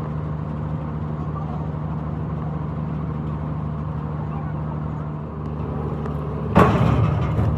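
An engine running steadily at an even speed, with one loud sudden noise about six and a half seconds in that dies away over about a second.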